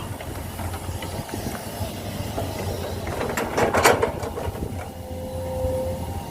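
Heavy diesel machinery running with a steady low rumble, with a burst of metallic clanking about three and a half seconds in and a brief whine near the end.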